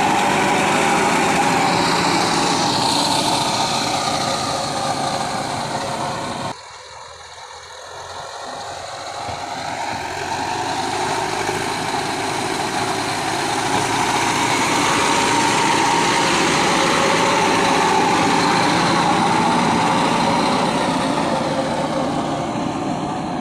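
Mahindra Earthmaster SX90 backhoe loader's diesel engine running steadily. The sound drops off suddenly about six and a half seconds in, then builds back up over the next several seconds.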